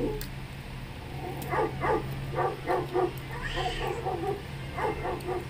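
A small dog yipping in quick runs of short, high barks, several a second, starting about a second and a half in and coming again near the end.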